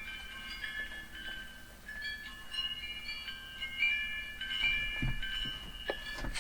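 Wind chime ringing: many high metal tones struck at random, overlapping and ringing on.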